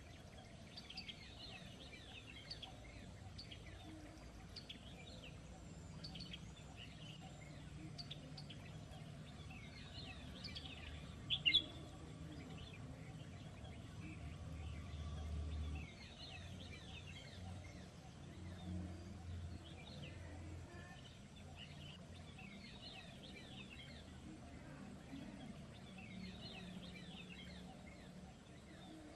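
Small birds chirping, a steady scatter of short, quick calls with one louder call about eleven seconds in. A low rumble runs underneath in the middle part and stops abruptly about sixteen seconds in.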